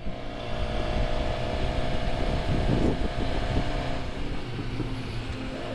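Motorcycle engine running on the move under steady road and wind noise, with a steady whine that drops out about four seconds in.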